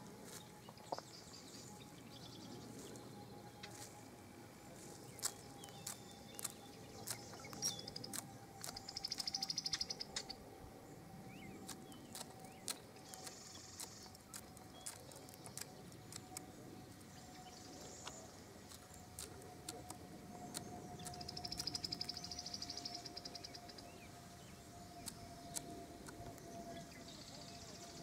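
Small songbirds singing, with two buzzy trills about ten seconds apart, over a faint steady hum that slowly sinks in pitch. Scattered sharp clicks run through the middle of the stretch.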